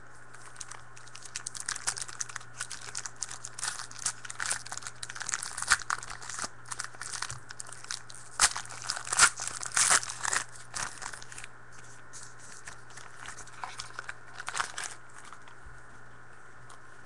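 Trading-card packs and cards being handled: wrappers crinkling and tearing and cards rustling, in a dense run of quick crackles that thins out near the end, over a faint steady hum.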